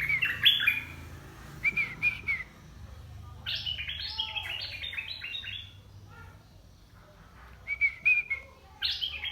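A decoy merbah lekir (bulbul) calling: short, paired, curving whistled notes near the start, about two seconds in and again near the end, with a quick run of chirps in the middle.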